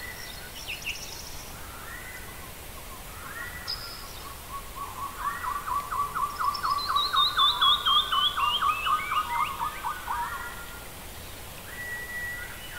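Birds singing: scattered rising chirps, then from about five seconds in a fast run of repeated chirps, with a second series of notes falling steadily in pitch, loudest in the middle.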